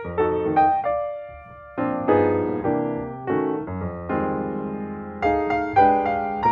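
Background piano music, single notes and chords struck one after another and left to fade.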